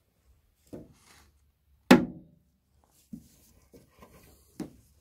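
Hand work in a car engine bay: a few light knocks and one loud clank about two seconds in, ringing briefly.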